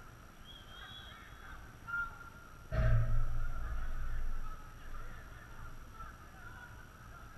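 Distant shouts and calls from footballers across the pitch. About three seconds in, a sudden thump close to the microphone is followed by a low rumble lasting a second or two.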